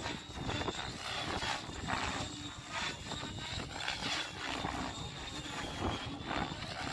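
Radio-controlled aerobatic helicopter flying freestyle overhead: a high steady whine with a rotor swish that swells and fades roughly once a second as the blades load up through the manoeuvres.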